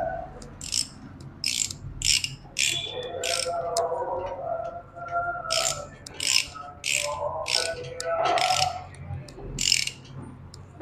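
Ratchet wrench clicking in short bursts, about one back-swing every half second with a brief pause near the middle, as the cylinder head plate bolts of a Hero Splendor engine are tightened.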